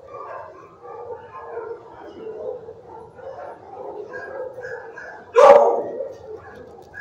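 Dogs barking and whining in a shelter kennel, with one loud, sharp bark about five and a half seconds in.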